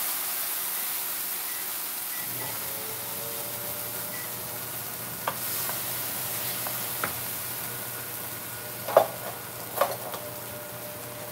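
Tomatoes and garlic sizzling in a square nonstick frying pan, the steady sizzle slowly fading. A wooden spoon stirs and knocks against the pan a few times, the two loudest knocks near the end.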